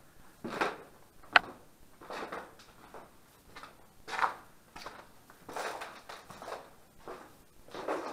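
Irregular footsteps and scuffs, about one or two a second, with one sharp click about a second and a half in.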